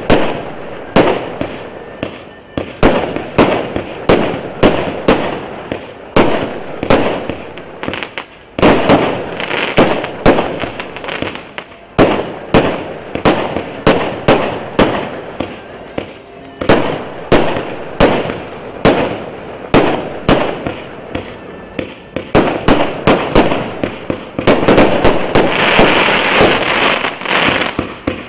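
Multi-shot consumer fireworks cake (56-shot battery of 0.8–1.25 inch tubes) firing shot after shot, about two sharp reports a second, each with a short fading burst after it. Near the end the shots come faster and run together into a dense continuous volley.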